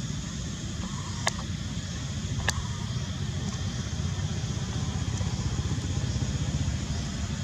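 Steady low outdoor background rumble, with two short sharp clicks about a second apart near the start.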